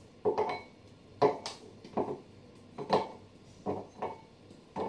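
Pieces of chocolate broken off a bar and dropped into a glass bowl: a series of sharp clinks at uneven intervals, about eight in all, each with a short ring.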